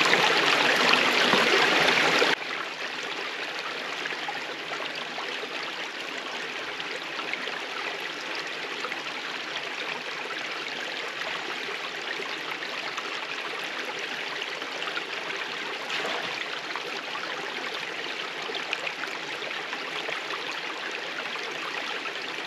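Shallow stream running over rocks and stones, a steady rush of water. It is louder at first and drops suddenly to a softer, even level about two seconds in.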